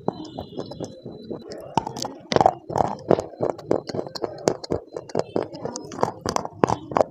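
Close-miked crunching and chewing of dry, hard pieces of edible clay: an irregular run of sharp cracks and crunches, loudest about two and a half seconds in.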